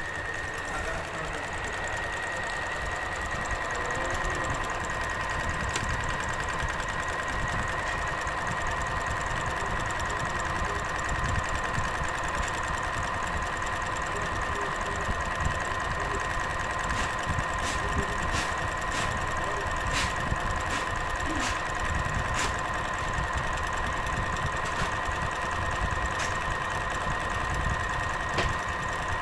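Juki HZL-7800 computer sewing machine running steadily while stitching a picot shell edge on fabric: an even motor whine over the needle mechanism's rapid rumble. Several sharp clicks come in the second half.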